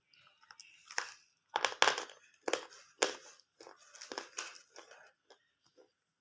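Cock brand slate pencils being bitten and chewed: a run of sharp, dry crunches, the loudest in the first three seconds, growing softer near the end.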